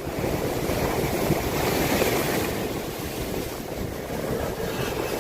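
Heavy storm surf breaking and rushing on a beach, with strong wind buffeting the microphone. The surf swells a little about two seconds in.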